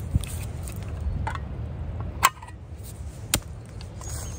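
A metal food tin being handled: a few sharp metallic clicks, the two loudest about a second apart in the second half, over a steady low rumble.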